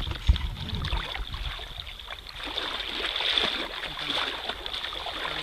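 Shallow seawater splashing and sloshing around people wading knee-deep on a flat, with a few low thumps in the first second.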